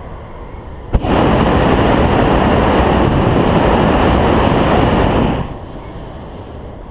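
Hot air balloon's propane burner firing in one blast: a click as the valve opens about a second in, then a loud, steady rush of burning gas for about four seconds that stops suddenly.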